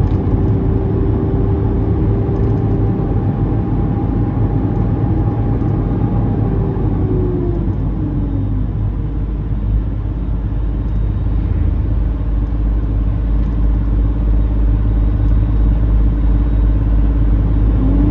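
Heavy truck's diesel engine running under way, with a steady low rumble and engine tone. About seven seconds in, the engine pitch falls as the revs drop, and it rises again near the end.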